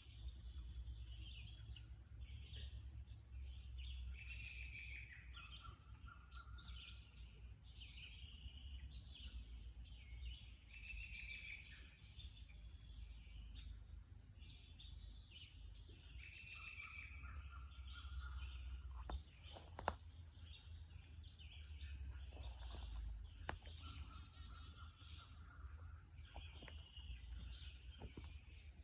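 Several songbirds singing in short, repeated phrases over a faint, steady low rumble, with a couple of brief clicks partway through.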